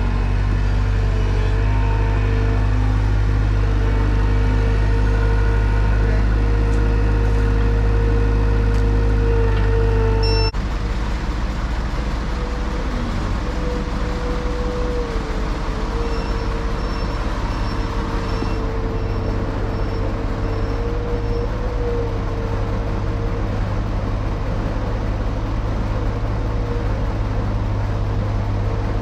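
Farm tractor engine running steadily under load while bale-wrapping machinery works, with a steady whine above the engine. The sound changes abruptly about ten seconds in, with less low rumble afterwards.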